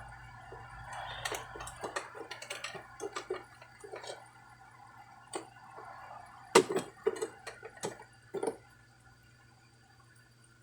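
Scattered small clicks and knocks of a coffee maker's plastic housing and parts being handled and worked loose, the sharpest knock about six and a half seconds in, dying away over the last two seconds.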